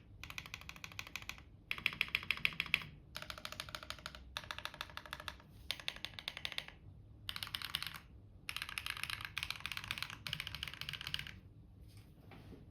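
Rapid typing on a custom mechanical keyboard with stock HMX Sugar Rush switches, a gasket-mounted, foamless build with a polycarbonate plate and clone GMK keycaps. It comes in quick bursts of about a second with short pauses between them, and the keystrokes have a clacky but fairly full sound.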